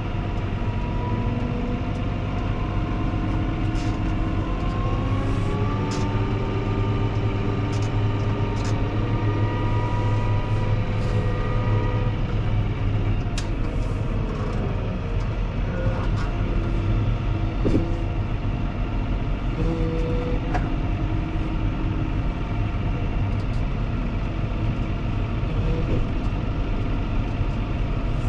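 Fendt 724 Vario tractor's six-cylinder diesel engine running steadily under load while plowing snow. Its pitch rises a few seconds in and eases back down about halfway through, with a few light clicks and knocks.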